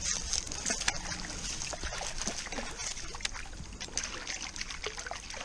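Small golden perch (yellowbelly) splashing and thrashing in shallow creek water as it is reeled in and grabbed by hand, a run of quick irregular splashes and sloshes.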